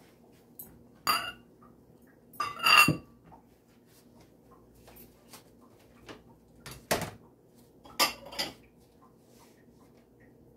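Metal utensils knocking and clinking against dishes in a few separate sharp, ringing strikes. The loudest is a cluster about three seconds in, with others about a second in and around seven and eight seconds in.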